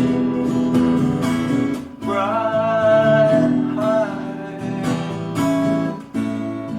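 Acoustic guitar strumming chords in an instrumental break between sung lines, with a long held melody note with a slight waver from about two seconds in.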